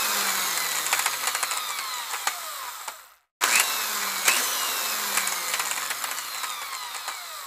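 Mechanical whirring and clicking sound effect laid over the intro, with many falling whines and sharp clicks. It cuts off about three seconds in and starts again.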